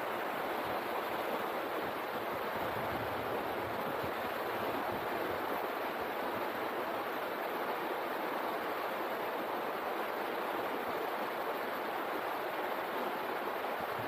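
Mountain river rushing over rocky rapids: a steady, even rush of water.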